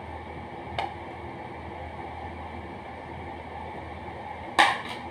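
Steady low background hum and hiss, with a light tick about a second in. Near the end comes a sharp clatter of a metal pot being handled on the countertop.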